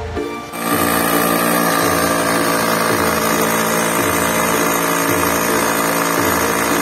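Hand-held electric drill running steadily as it drills into the wall beside a window, a continuous motor whine starting about half a second in.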